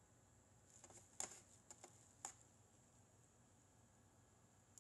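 A few faint clicks of a computer mouse button, a cluster in the first half with the sharpest about a second in and one more near the end, over a faint steady high-pitched whine.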